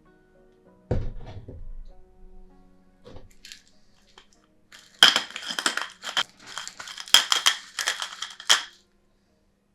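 Hand-twisted refillable glass grinder crushing coarse grains in a run of rasping crunches, starting about five seconds in and lasting nearly four seconds. A single knock comes about a second in.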